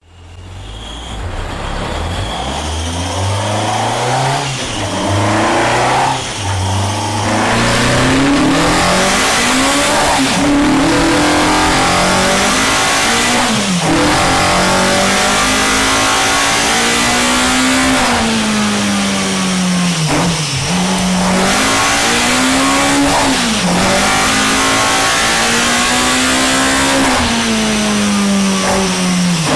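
Naturally aspirated Cosworth engine with slide-throttle induction, in a Ford Sierra on a rolling road. It is blipped a few times at low revs, then runs hard at high revs. Its pitch climbs and drops sharply again and again.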